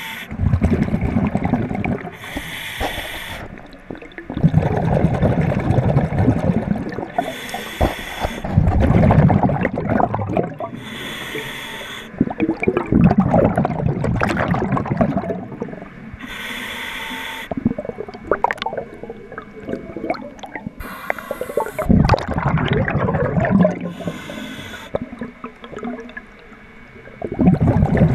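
Diver breathing through a scuba regulator, heard underwater: a short hiss on each inhale, then a longer bubbling gush of exhaled air, about every four seconds. Scattered clicks and scrapes come from scraping husks off the propeller pod.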